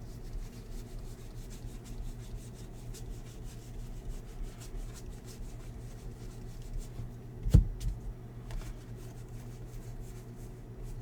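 Hands flicking and sliding through a stack of baseball trading cards, soft rubbing and quick light ticks over a steady low hum, with one sharp thump about seven and a half seconds in.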